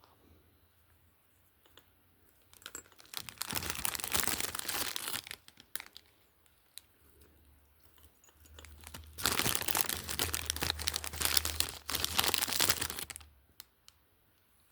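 Packaging crinkling and tearing as products are unwrapped, in two long bursts, the second a little louder.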